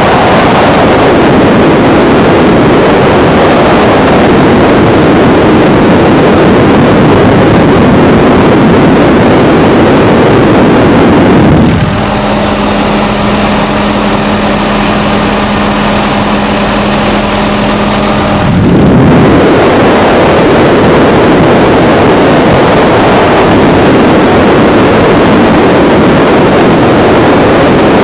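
Helicopter in flight, heard from the cabin: a loud, steady rush of rotor and engine noise with wind on the microphone. About twelve seconds in the rush eases and a steady pitched hum from the machinery comes through for around six seconds, then the rush returns.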